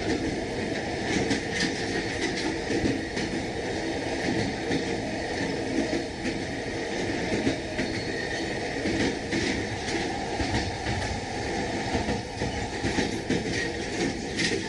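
Moving train running steadily, its wheels clacking over the rail joints with a continuous rumble, heard from inside the carriage.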